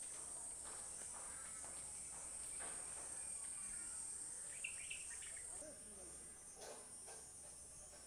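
A faint, steady chorus of insects chirring, a continuous high-pitched trill, with a few soft scattered clicks and a brief chirp about four and a half seconds in.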